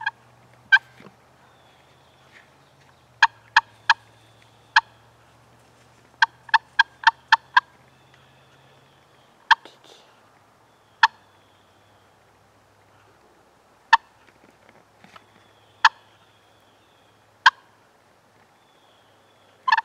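Wild turkey clucks: short, sharp single notes, with a quick run of six around the middle, then single clucks a couple of seconds apart.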